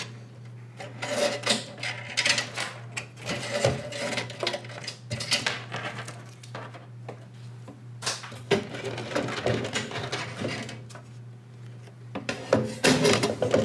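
Handling noise from water-cooling tubing and a metal hard-drive tray being pulled out of a steel test bench: irregular rubbing, scraping and light knocks, busiest near the end, over a steady low hum.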